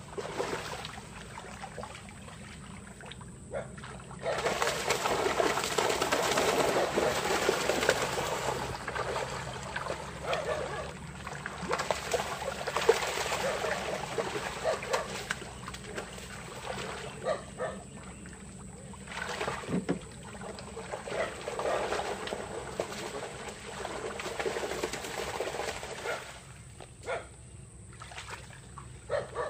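Shallow, muddy pond water splashing and sloshing as people wade and grab at fish in a nearly drained pond, in two long spells of splashing about four seconds in and again after twenty seconds, with quieter trickling in between.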